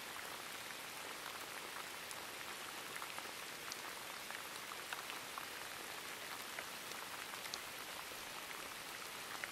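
Steady rain falling, an even soft hiss with scattered light drop ticks.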